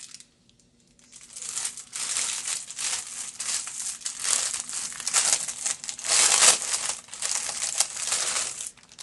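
Plastic packaging bag crinkling continuously as it is handled and opened, starting about a second in.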